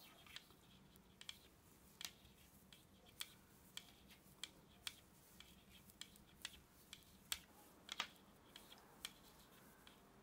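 Faint, irregular clicking of wooden knitting needles tapping together as stitches are knitted along a row, about one or two clicks a second.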